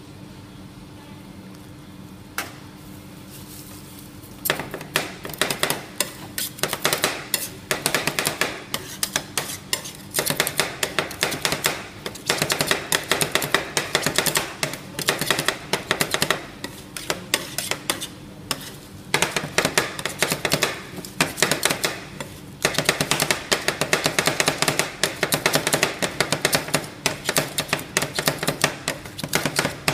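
Steel spatulas rapidly chopping and scraping ice cream mix on the frozen steel plate of a rolled ice cream cold plate, long runs of quick metallic clacks with short pauses, starting about four seconds in. Before that, only a steady low hum.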